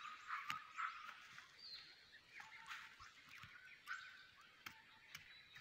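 Faint bird calls: many short calls, some sliding in pitch, with a few light clicks among them.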